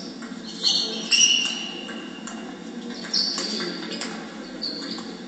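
Table tennis rally in a sports hall: players' shoes squeak sharply on the hall floor several times, the longest and loudest squeak about a second in, with light clicks of the ball off bats and table beneath.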